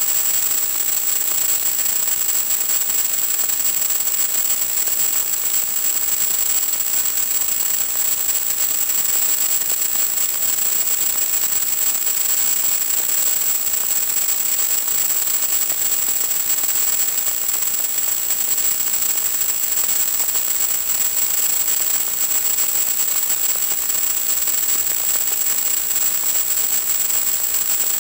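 Steady static hiss with a constant high-pitched whistle running through it, the noise of an analog FPV video link's audio channel rather than any sound from the aircraft.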